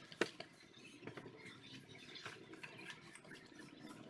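Light handling noises: scattered small clicks and taps, with one sharper click shortly after the start.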